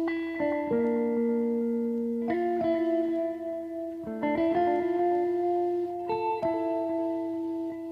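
Background music of plucked string notes, a new chord struck about every two seconds and left to ring.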